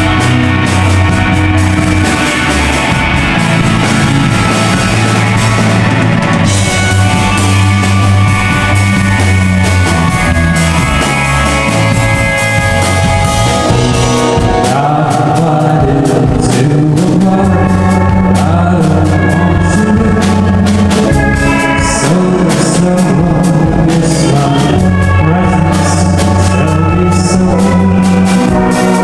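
A rock band playing live: electric guitar and drums, loud and continuous, with a man's singing voice coming in about halfway through.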